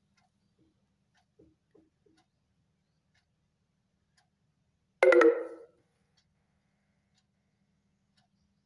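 Faint, even ticking about once a second, with one loud, short pitched sound about five seconds in that fades away in under a second.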